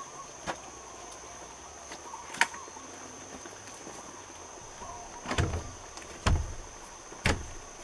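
New-construction window frame knocking against the plywood wall sheathing as it is lifted and set into the rough opening: a couple of light clicks, then three heavier thumps about a second apart near the end.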